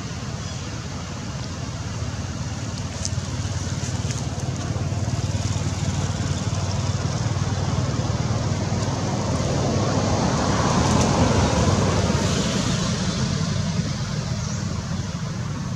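A passing motor vehicle: steady low engine rumble that swells to its loudest about eleven seconds in, then fades.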